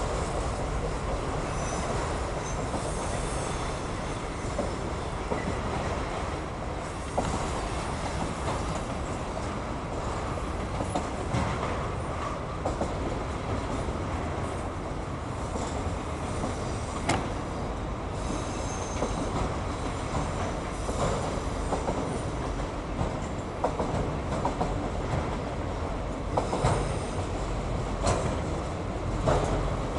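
Autorack freight cars rolling past: a steady rumble of steel wheels on rail, broken by scattered sharp clicks and knocks, with brief faint high wheel squeals now and then.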